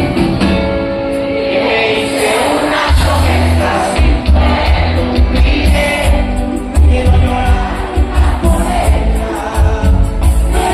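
Cumbia song with singing over a heavy, pulsing bass line and steady percussion.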